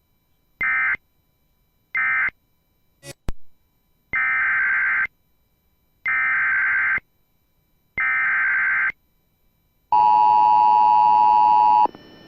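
Emergency Alert System SAME data bursts: the last two short end-of-message bursts, a click, then three longer header bursts of warbling digital data about two seconds apart for the next alert. These are followed by the EAS attention tone, a steady dual tone, which sounds for about two seconds and cuts off just before the end.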